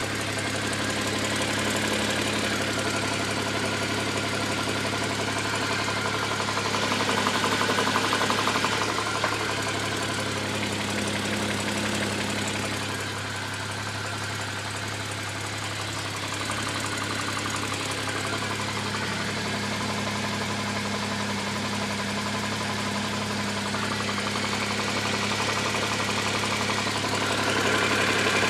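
Toyota 1G-GE 2.0-litre straight-six engine idling with a rapid, steady knock from inside the engine.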